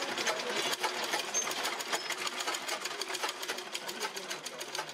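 Sewing machine running and stitching fabric, a fast, even run of mechanical clicks.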